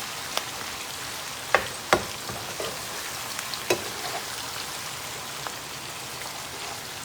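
Potatoes, onions and fish frying in hot grease: a steady sizzle with a few sharp pops or clicks, the loudest about a second and a half and two seconds in, and another near four seconds.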